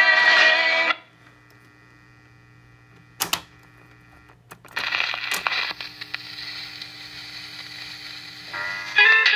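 A 1950 Ristaucrat Dial-O-Matic 45 rpm record changer: the record's music stops about a second in as the reject is worked, leaving the amplifier's mains hum. The changer mechanism clicks and clunks as it cycles, the stylus then hisses steadily in the groove, and the next record's music starts near the end.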